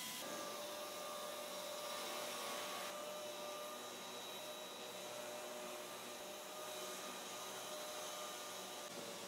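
Pneumatic orbital sander running against a car body panel: a steady airy whine over a hiss.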